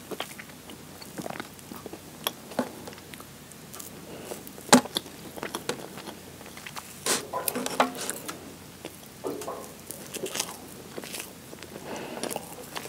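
Close-miked chewing and wet mouth sounds of eating strawberry shortcake with whipped cream and sponge, with scattered sharp clicks and taps as a fork cuts into the cake and touches its cake tray.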